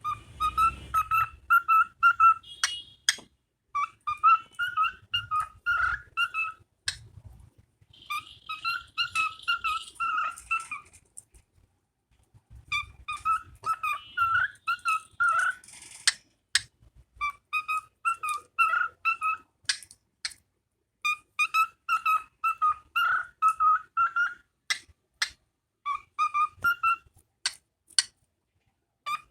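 A bird singing in bouts of a few seconds: quick runs of repeated whistled notes, with short sharp chips between the bouts.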